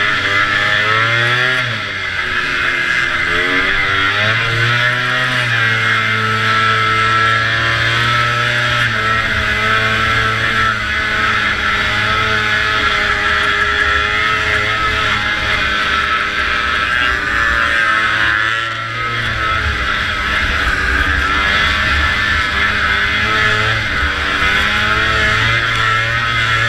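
Antique two-stroke snowmobile engine running at high revs under race load, with brief drops in revs about two seconds in and again near nineteen seconds as the throttle is eased and reopened.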